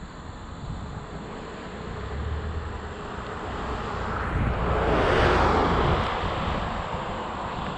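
A vehicle passing by with a rushing noise that builds, is loudest about five seconds in, then fades, over a steady low rumble.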